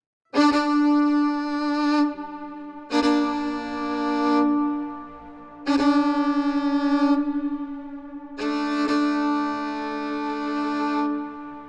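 Bowed string instrument playing four long held notes, each opening with a sharp bow attack and often sounding two strings at once, the third with a wavering vibrato.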